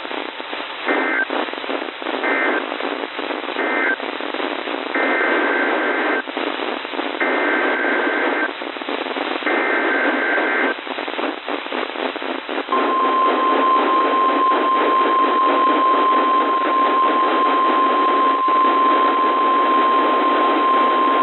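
NOAA Weather Radio alert sequence received through heavy radio static: three short bursts of warbling two-tone digital data, then three longer data bursts, which are the SAME header for a tornado warning. The single steady 1050 Hz warning alarm tone follows from about halfway through and is held for about nine seconds.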